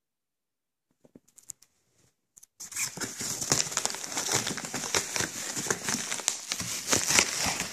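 Plastic bubble wrap crinkling and rustling as a hand pushes into it and pulls at it inside a cardboard box. A few faint rustles come first, then dense crinkling full of small crackly ticks from about two and a half seconds in.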